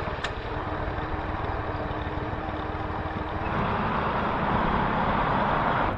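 Small motorcycle engine running while riding, with steady road and wind noise; the noise grows louder about three and a half seconds in.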